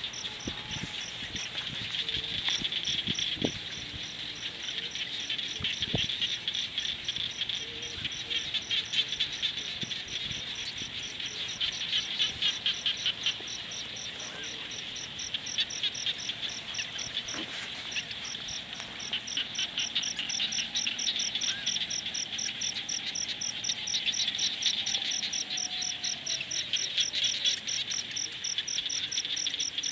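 Evening chorus of insects and frogs: a fast, steady pulsing chirp high up, and thick trilling that swells and fades in waves. A few faint crackles of a campfire come through, mostly in the first few seconds.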